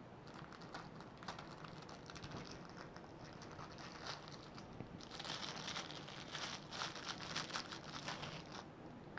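Packaging being handled and unwrapped: faint crinkling and rustling with scattered light clicks, growing denser and louder for the last few seconds before it stops.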